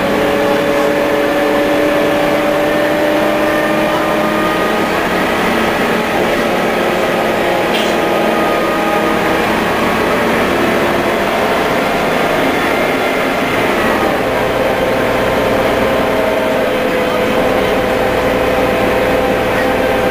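MCW Metrobus double-decker heard from inside the lower deck while under way: the diesel engine and driveline run with a steady whine whose pitch climbs slowly through the first half, then shifts and settles. A brief click about eight seconds in.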